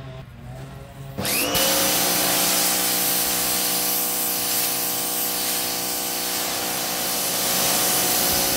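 Parkside PHD 170 D2 electric pressure washer starting up about a second in, then running steadily: a loud motor-and-pump hum with a strong hiss of water jetting from the lance onto paving.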